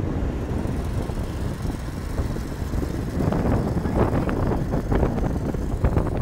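Road noise and wind rushing in through the open window of a moving car, with other vehicles passing close alongside. The noise grows fuller about three seconds in.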